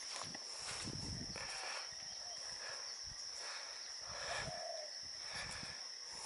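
Steady high-pitched insect chorus, with soft footsteps through grass now and then.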